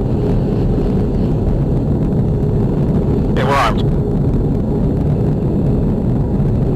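Steady low roar of jet engine and airflow noise heard on board an aircraft in flight. A short burst of radio voice cuts in about three and a half seconds in.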